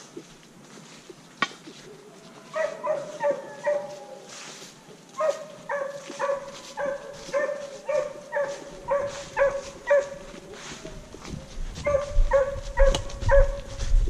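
Hunting hound baying on a wild boar's trail, giving tongue in runs of short barks at about two a second with pauses between runs. Footsteps on leaf litter can be heard near the end.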